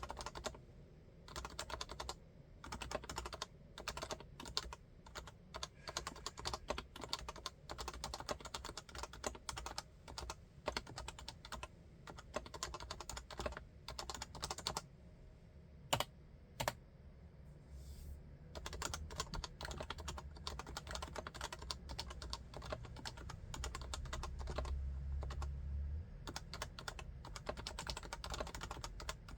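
HHKB Classic's Topre capacitive switches being typed on in fast continuous runs, each keystroke a soft clack with a slight rattle. About halfway through the typing pauses for a few seconds, broken only by two sharp single keystrokes, and then resumes.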